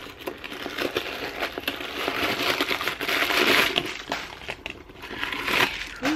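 Crinkling and rustling of packing material while a new backpack is handled, with many small crackles, loudest about halfway through.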